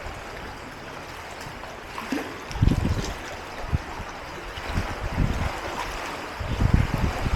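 Sea water washing and sloshing against rocks in a steady wash, with strong low surges about two and a half seconds in, around five seconds, and again near the end.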